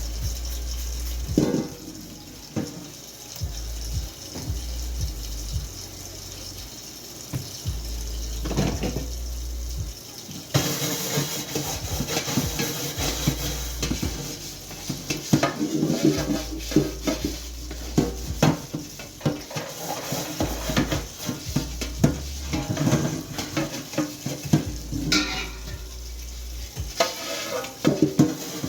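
Large crab pot being washed by hand at a kitchen sink: knocks and scrapes of the pot against the sink, with tap water running from about ten seconds in, and dense clattering over the water.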